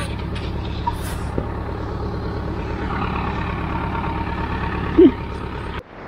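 Steady low engine drone with no letup, with a brief louder sound about five seconds in; it cuts off abruptly just before the end.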